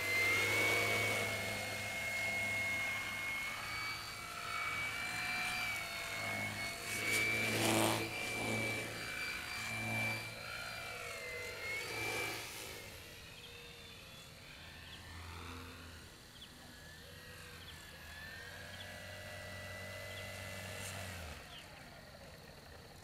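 Electric whine of a foam RC airplane's BM2410-12 brushless outrunner motor and 12x6 propeller in flight, its pitch rising and falling as the throttle changes. It grows fainter about halfway through as the plane flies farther off.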